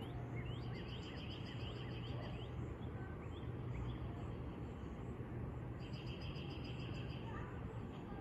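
Birds calling outdoors: short rising chirps repeat throughout, and two rapid trills of about two seconds each come near the start and again about six seconds in. A steady low hum and background noise run underneath.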